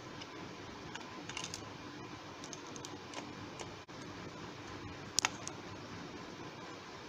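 Scattered light clicks and taps of a screwdriver against the aluminium LED board and the plastic bulb housing as the board's screw is driven home, with a sharp double click about five seconds in. A steady faint hiss lies underneath.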